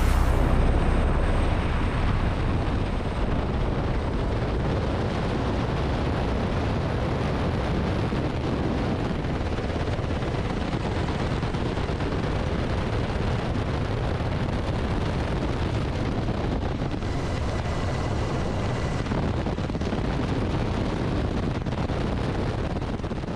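Steady, loud helicopter noise: the rotor and turbine din mixed with rushing wind. It fades out near the end.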